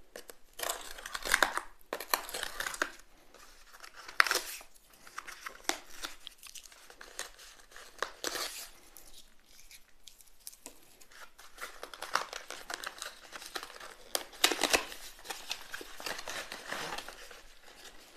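Packaging being unwrapped by hand: plastic and paper crinkling and tearing in irregular bursts, with louder rips about a second and a half in, around four seconds in, and near the end.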